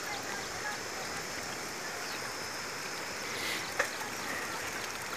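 A herd of goats walking on a concrete road: a steady patter of many hooves with a hiss, and one sharper click about four seconds in.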